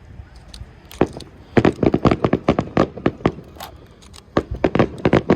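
Aerial fireworks going off: a quick run of sharp bangs and crackles starting about a second in, with a short lull near the middle before more bangs.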